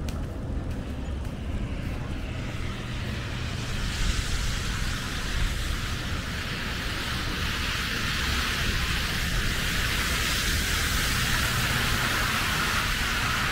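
A car approaching on a wet, snowy street: tyre hiss on slush that swells from a few seconds in and keeps getting louder, over a steady low rumble of wind on the microphone.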